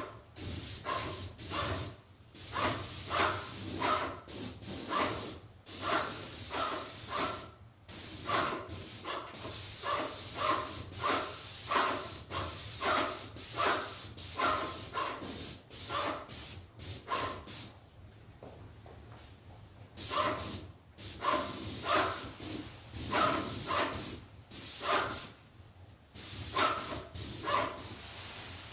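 Paint spray gun hissing in many short trigger-pulled bursts as a coat is sprayed onto a wooden cabinet, with a break of a couple of seconds about two-thirds of the way through.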